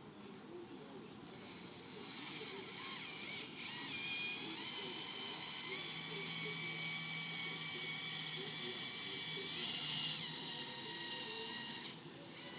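A small electric motor whirring with a high, steady whine and some hiss. It starts about two seconds in, shifts pitch slightly a couple of times, and cuts off suddenly near the end.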